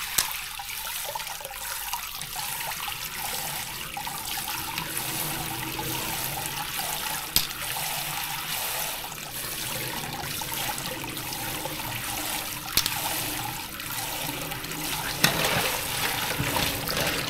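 Tap water running steadily into a sink as fresh surf clams are rinsed of sand, with four sharp clicks scattered through it.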